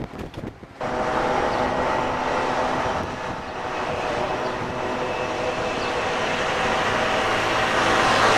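A motor vehicle engine running steadily, with a droning hum; it comes in suddenly about a second in and grows slowly louder.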